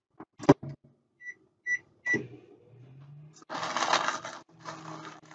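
A microwave oven door clacks shut and three keypad beeps sound, then the microwave starts running with a low hum. About three and a half seconds in, a plastic zip-top bag of crushed graham crackers crinkles loudly as it is handled.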